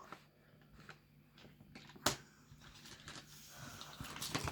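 Faint clicks and rustling of fingers feeling through small gemstones, with one sharper click about two seconds in.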